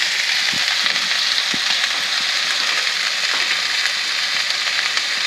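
Sheepshead fillets frying in olive oil in a hot pan: a steady sizzle with a few small crackles.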